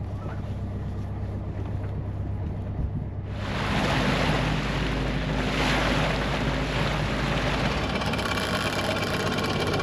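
Sailboat engine running with a steady low hum. About three seconds in, a loud rush of wind and water noise comes in over it and keeps going.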